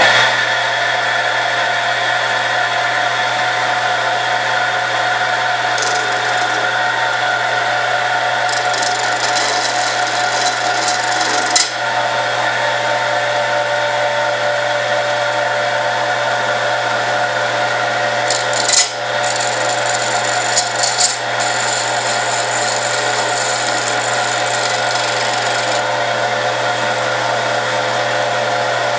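Wood lathe motor running steadily with a low hum, while a carbide turning tool scrapes the spinning acrylic blank in several bouts of a few seconds, the longest near the end.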